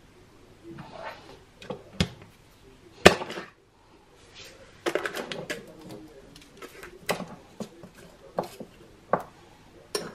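A metal teaspoon clinking and scraping against a glass jar of instant coffee as it is handled on a worktop, in a series of sharp clicks and knocks, the loudest about three seconds in.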